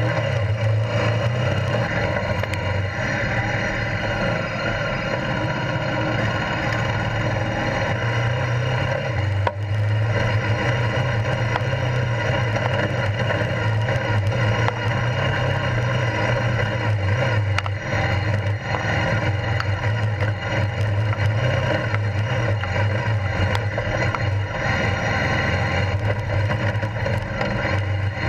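Honda CRF1000L Africa Twin's parallel-twin engine running steadily under way, with tyre and wind noise from riding off-road.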